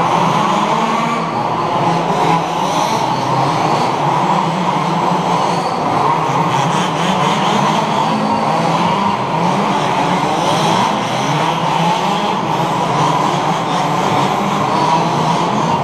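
Several 1/5-scale petrol RC buggies racing, their small two-stroke engines running and revving together, each rising and falling in pitch without a break.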